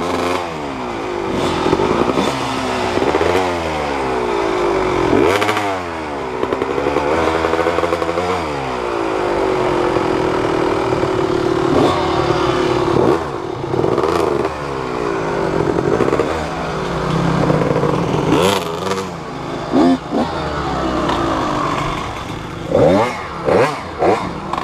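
Off-road motorcycle engine revving in repeated rising and falling surges as the throttle is worked, with clattering. Near the end come several short, sharp throttle blips.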